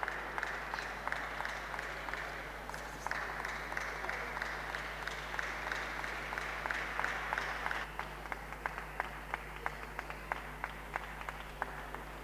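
Audience applauding. About eight seconds in, the dense applause thins into fewer, evenly spaced claps at about three a second.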